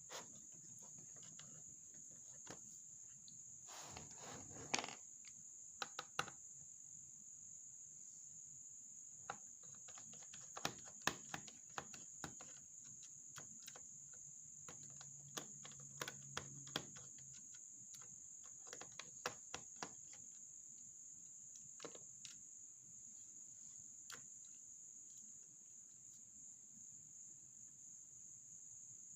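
Scattered small clicks and taps of plastic laptop parts and a screwdriver being handled, loudest about four seconds in and again around eleven seconds, over a faint steady high-pitched tone.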